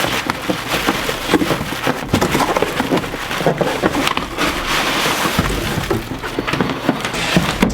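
Cardboard shipping packaging and a camera kit box being handled and opened by hand: a steady run of rustling, crinkling and scraping with many small knocks.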